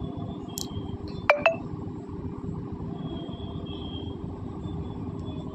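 Spoon clinking twice against a stainless steel mixing bowl while stirring batter, two quick metallic rings about a second and a half in, over a low steady background.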